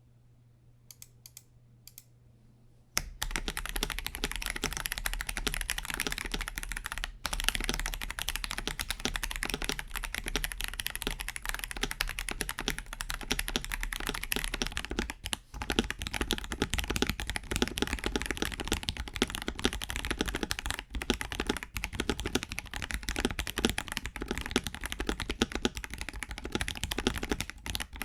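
Fast, continuous typing on a KBD67 Lite R3 mechanical keyboard fitted with Akko Sponge tactile switches. A few faint clicks come first, then the typing starts about three seconds in and runs on without a break.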